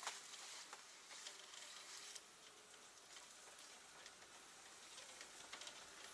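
Near silence: faint hiss with a few small ticks, one sharper click right at the start.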